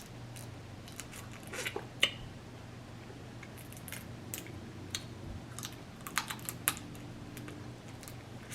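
Close-up eating sounds of seafood being chewed: irregular small clicks, crunches and mouth smacks, a few of them sharper, over a faint steady low hum.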